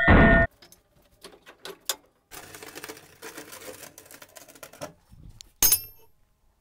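Angle grinder cutting a large steel bearing ring stops suddenly about half a second in. Quiet clicks and knocks of handling follow, then near the end a single sharp metal clank with a short ring as the cut steel ring is set down on a steel surface.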